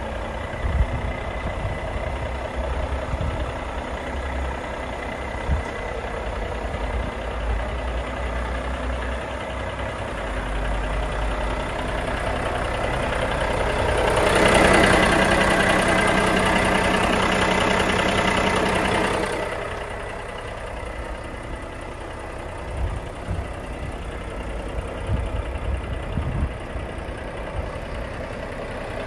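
Volvo FH 13.460's 13-litre six-cylinder diesel idling steadily, clearly louder for about five seconds around the middle. A few short knocks come over it.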